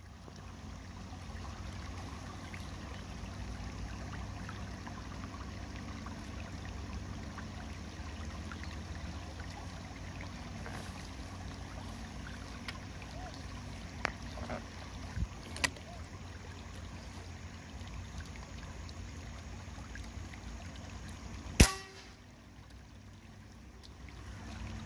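A single sharp shot from a Dipo air rifle a few seconds before the end, by far the loudest sound, over a steady low rumble. A couple of faint clicks come several seconds before the shot.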